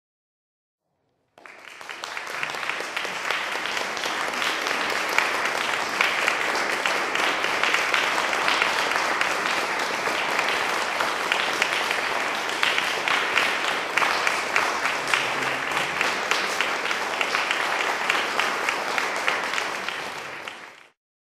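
Audience applauding: dense, even clapping from many hands that starts abruptly about a second in and is cut off suddenly just before the end.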